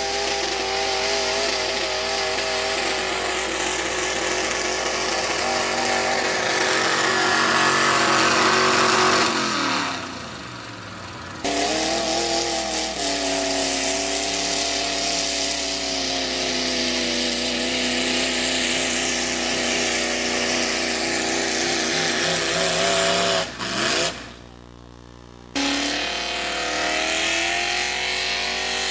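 Modified pulling tractor's engines running at full throttle under the load of the sled. The pitch climbs to a peak, falls away, then rises again as the next tractor pulls. The sound drops out twice for a second or two and comes back abruptly.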